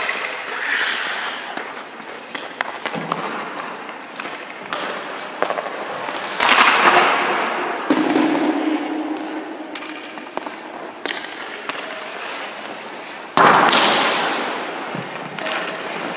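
Ice hockey goalie's skate blades scraping and carving the ice, and his pads dropping and sliding on it, during crease movement drills. Two loud sharp scrapes, about six and thirteen seconds in, each trail off over a second or two, with smaller scrapes and knocks between them.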